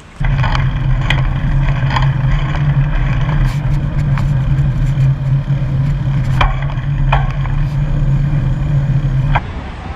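Loud road traffic with a steady low engine hum and scattered sharp clicks and knocks. It cuts in just after the start and cuts off abruptly near the end.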